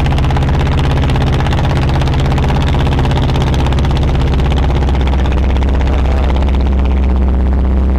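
Boat engine running steadily at an even speed, with a loud, constant low drone and fast regular firing.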